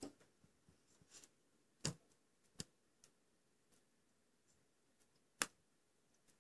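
A few sharp clicks and taps in near silence, about five of them, the loudest a little before the end: a hatching chick inside its cracked chicken egg pecking and scratching at the shell.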